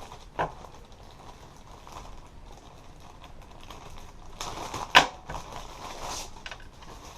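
Plastic packaging being handled, with a sharp click about half a second in and a louder snap about five seconds in amid a couple of seconds of rustling.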